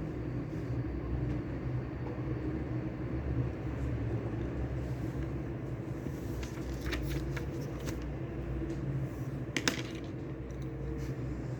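Steady low rumble of background ambience, with a few light clicks past the middle and one sharper click near the end.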